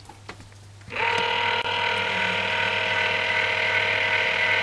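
Channel Master 9521 antenna rotor's 24 V AC motor and its gear train starting about a second in and running steadily, a mechanical whine of several steady tones.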